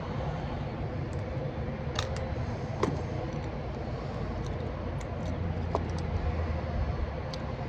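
A few light, sharp clicks and taps from small lock parts and tools being handled, spread out over a steady background rumble.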